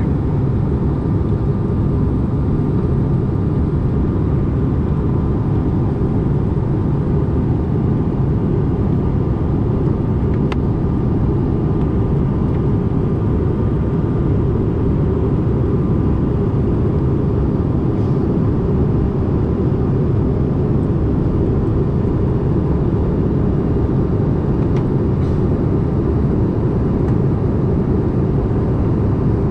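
Steady cabin noise of a CRJ-550 regional jet in flight: the rear-mounted GE CF34 turbofans and the air rushing past the fuselage make a low, even rumble with a faint steady whine on top.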